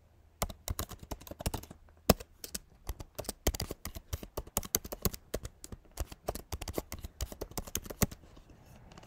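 Computer keyboard typing: a run of quick, irregular keystrokes as text is entered into form fields.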